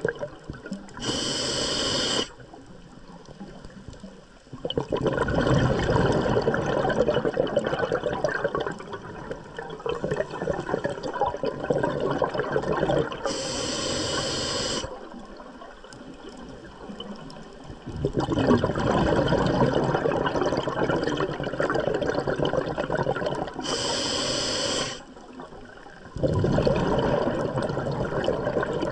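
Scuba diver breathing underwater through a regulator: three breaths, each a short hissing inhale, then a brief pause, then a long stream of exhaled bubbles.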